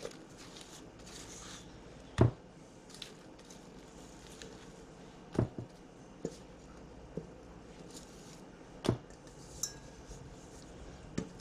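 A rubber spatula scraping and knocking against a metal mixing bowl while scooping out cream cheese filling: three sharp knocks about three seconds apart, the first the loudest, with softer clicks between.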